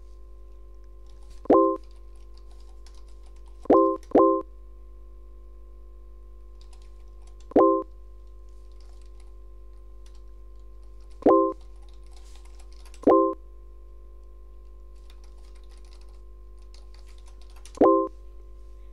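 Chat website's new-message notification beep, sounding seven times as messages arrive, with faint computer-keyboard typing between the beeps and a steady low hum underneath.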